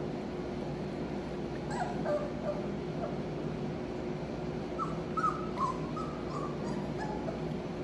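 Four-week-old Australian Labradoodle puppies whimpering in short, high squeaks: a few about two seconds in, then a cluster around five to six and a half seconds, over a steady low hum.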